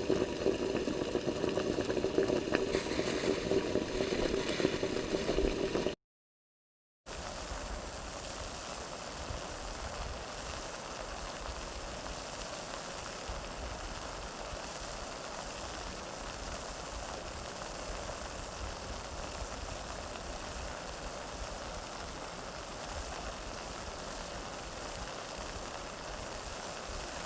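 Water sound effects: churning, bubbling water for about six seconds that cuts off suddenly, then after a second of silence a steady, quieter rush of running water with a low rumble.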